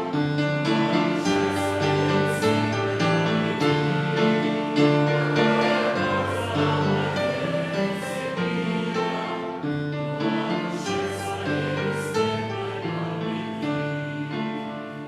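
Choir singing a slow hymn with instrumental accompaniment, the held chords changing step by step and the sound dying away near the end.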